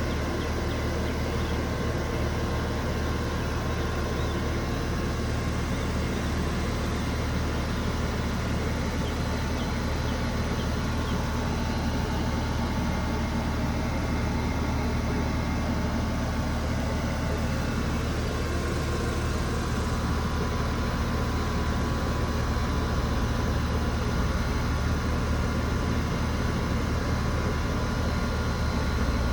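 Central air conditioner's outdoor condenser unit running steadily: a low hum with fixed steady tones above it.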